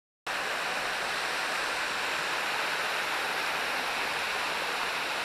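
Steady rush of running stream water, cutting in suddenly just after the start following a moment of silence.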